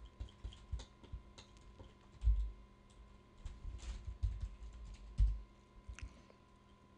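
Scattered clicks of a computer keyboard and mouse, with two low thumps about two and five seconds in.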